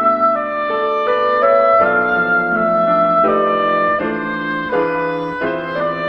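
Instrumental background music: a melody of held notes moving step by step over sustained chords.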